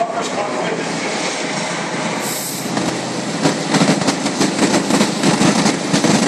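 Evolution circular saw cutting through the sheet-metal body of a box truck: a steady, loud cutting noise that turns into a rough, rapid chattering about three and a half seconds in.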